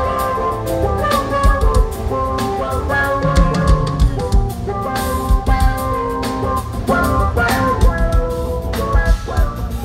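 A live band playing: a drum kit beating steadily under sustained, shifting keyboard chords.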